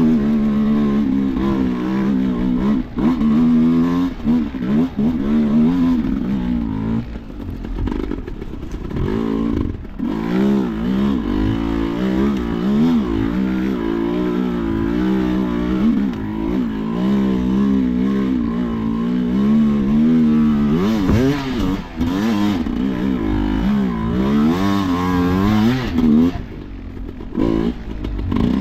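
Enduro motorcycle engine, revved up and down over and over as the throttle is worked, its pitch rising and falling every second or two with short drops near idle.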